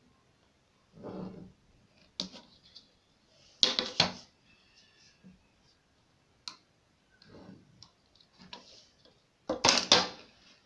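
A clear plastic ruler being picked up, laid down and slid over sheets of pattern paper on a wooden table: a string of short knocks, ticks and scrapes with paper rustling. The loudest handling comes about four seconds in and near the end.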